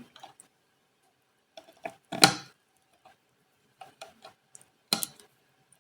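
A handful of irregular small clicks and light knocks, the loudest about two seconds in and another near five seconds, from the controls on a microwave sensor's electronics module being worked to adjust its offset.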